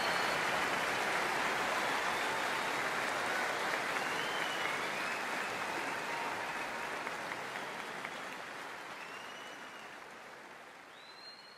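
Audience applause, fading out slowly, with a few faint high gliding tones above it.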